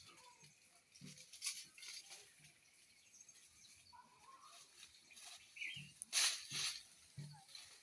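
Faint outdoor rustling and crackling, with a few brief bird calls.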